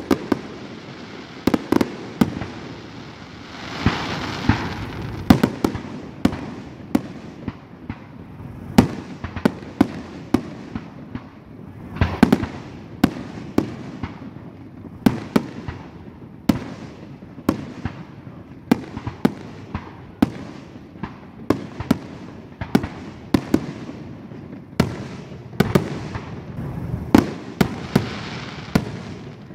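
Aerial fireworks shells bursting in a steady, irregular string of sharp booms and pops, about one or two a second, some in quick clusters.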